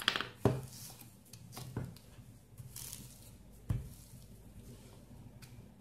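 Wooden rolling pin rolling cookie dough flat through a sheet of plastic cling film, with light crinkling of the film and a few soft knocks as the pin is worked back and forth.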